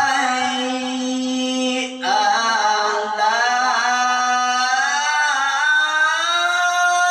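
A male qari's solo melodic Arabic recitation. One long held note, a short break for breath about two seconds in, then a phrase with wavering melismatic ornaments that climbs to a higher note held near the end.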